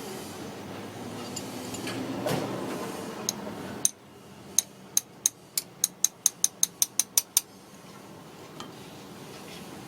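A rushing noise that swells and then cuts off suddenly about four seconds in. It is followed by a run of about a dozen sharp metallic clicks that come faster and faster, like a hand tool being worked.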